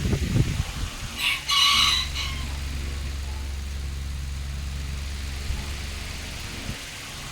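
A rooster crows once, about a second in. Under it a steady low mechanical hum starts at about the same time and stops near the end.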